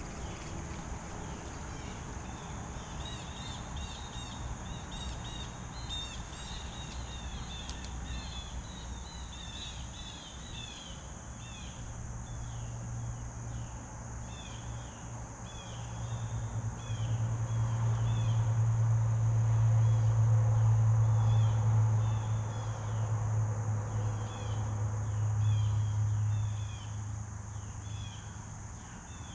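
Late-summer insect chorus, a steady high buzz, with short chirps repeating about once a second. From about twelve seconds in, a low steady drone swells, becomes the loudest sound around twenty seconds, and fades near the end.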